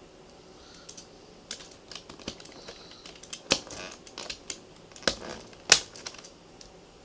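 Typing on a Compaq 6511-VA laptop keyboard: irregular key clicks starting about a second in, with a few louder strikes among them, stopping about a second before the end.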